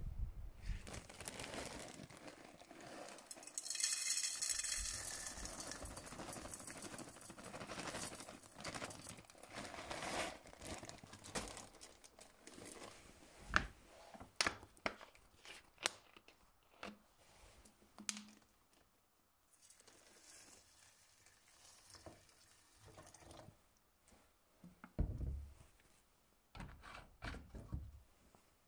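Hands preparing a meal in a small metal cooking pot: a plastic food bag crinkling, water poured into the pot, and scattered clinks and knocks of the pot and its lid.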